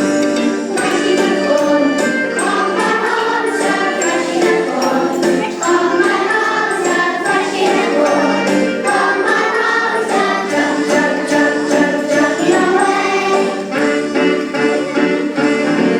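A song sung by a group of voices over instrumental accompaniment, with a jingling percussion beat.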